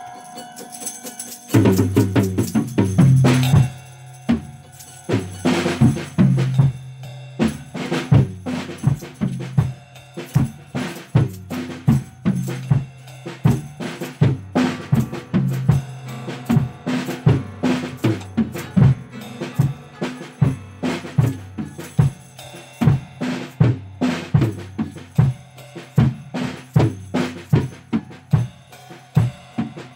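Music with a drum kit: after quieter pitched notes, the drums come in about a second and a half in and keep up a busy beat of bass drum and snare hits over a low, sustained bass.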